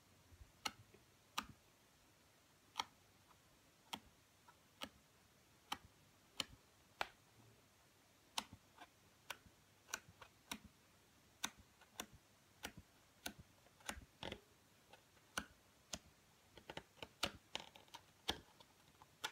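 Sheets of 250 g cardstock being turned over one by one in a paper pad, giving faint, crisp ticks and taps at irregular intervals of about a second, with a quicker run of taps near the end.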